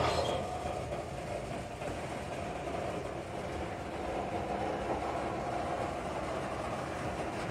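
Freight train of BNSF covered hopper cars rolling past steadily: the even noise of steel wheels running on the rails.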